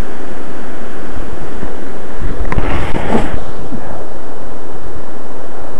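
Loud, steady rush of water pouring down a waterfall, with a few scrapes and knocks about halfway through.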